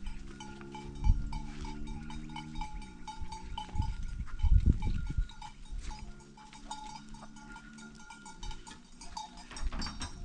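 Herd of goats walking past, the bells on the goats clinking in many small, irregular strokes, over a low steady hum that drops in pitch about three seconds in and a few low thumps.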